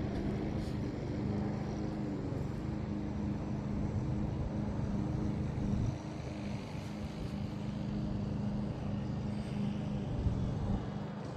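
Electric motor and propeller of a Pandora RC model airplane running on a 4S battery, a steady droning hum.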